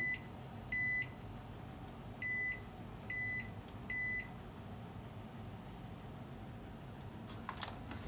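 Hisense front-loading washing machine beeping as its program selector dial is turned: five short, high electronic beeps in the first four seconds, one for each program step. A few faint clicks come near the end.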